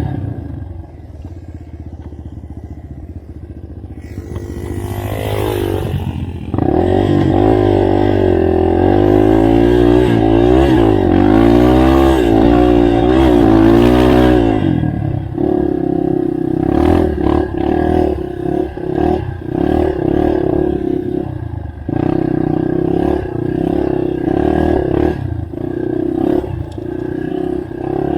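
Yamaha TT-R230 trail bike's single-cylinder four-stroke engine running under a rider, its pitch rising and falling as the throttle opens and closes, loudest about five to fourteen seconds in. After that it runs steadier, with scattered knocks and clatter.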